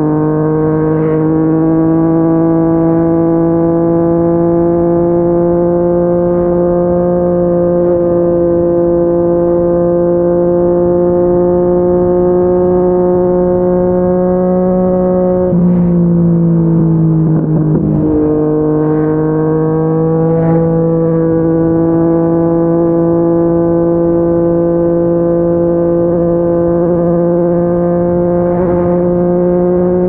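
Yamaha MT-09's three-cylinder engine, fitted with a Yoshimura R55 slip-on exhaust, pulling steadily at highway speed, its note slowly rising. About halfway through the note dips and goes rough for a couple of seconds, then settles and climbs slowly again.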